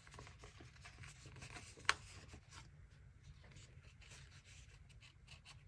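Faint rustling and light scratchy handling of paper and sticker sheets on a planner page, with one sharp tick about two seconds in.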